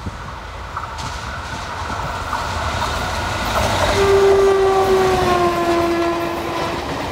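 WAP4 electric locomotive's horn sounding one long blast from about four seconds in, its pitch sliding down slightly, over the rising rumble of the approaching express train.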